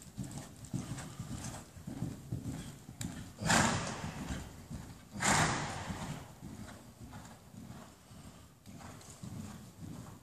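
Pony's hooves thudding rhythmically in the soft sand footing of an indoor arena as it is ridden, with two loud breathy blows, one a few seconds in and another about two seconds later.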